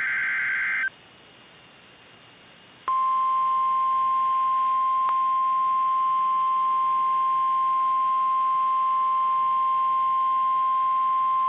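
NOAA Weather Radio emergency alert. It opens with the last second of a SAME digital header burst, a warbling data screech. After about two seconds of faint hiss, the 1050 Hz Warning Alarm Tone comes in about three seconds in: one steady, loud, unbroken tone, with a brief click partway through. The tone signals a warning broadcast, here a severe thunderstorm warning.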